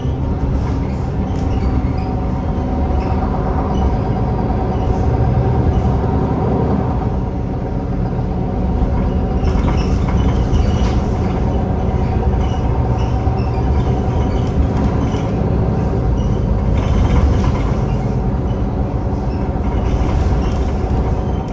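MAN Lion's City Hybrid bus under way, its MAN D2066 10.5-litre straight-six diesel and ZF Ecolife automatic gearbox running steadily with a steady whine over the engine note and light rattles.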